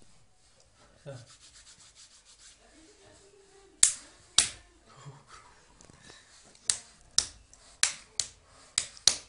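Hand slaps, skin on skin: a child smacking an adult's raised palms. There are eight sharp slaps, starting about four seconds in and coming faster near the end.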